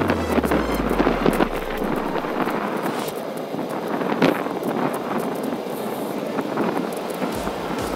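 Wind buffeting the microphone of a camera riding on a moving bicycle, with tyre noise from the paved path and frequent small rattles and knocks from the bike.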